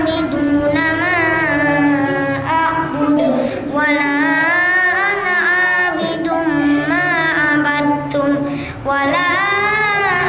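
A boy reciting the Qur'an in melodic Arabic chant into a microphone, with ornamented, wavering long-held notes, taking a short breath near the end.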